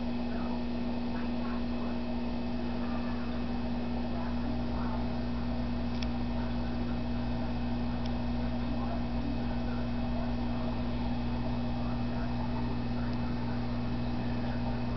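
Steady low electrical hum of running aquarium equipment, unchanging throughout, over faint room noise.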